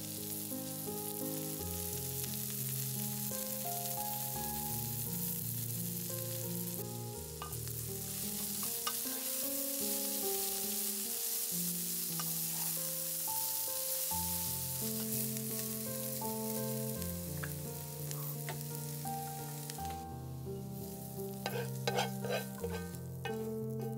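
Shredded cabbage and carrots sizzling in oil in a frying pan while being stirred with a spoon. About 20 seconds in the sizzling fades, and a few clinks and scrapes follow as the vegetables are tipped from the pan onto a plate. Soft background music plays throughout.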